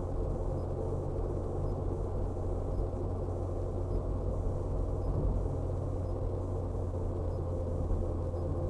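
Steady low rumble of a car's engine and tyres on the road, heard from inside the cabin by a dashcam as the car drives along.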